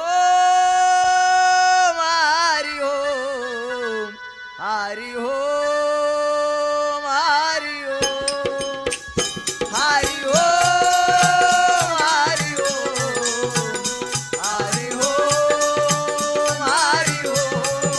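Bharud folk devotional song: long held sung notes with wavering ornaments, joined about eight seconds in by quick hand-drum percussion.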